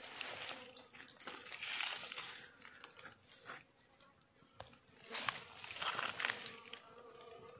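Dry leaf litter and undergrowth rustling and crunching in irregular bursts, loudest about two seconds in and again around five to six seconds in, with small snapping clicks.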